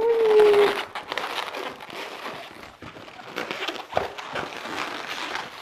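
Inflated latex twisting balloons squeaking and rubbing as they are twisted and worked into a balloon animal: a loud squeak in the first second, a short squeak about four seconds in, and crinkly latex rubbing in between.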